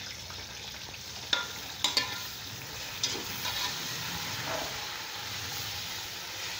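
Chicken with tomatoes, green chillies and ginger-garlic paste sizzling as it fries in a cooking pot, the first stage of frying the meat for pulao. A spoon knocks against the pot a few times between about one and three seconds in.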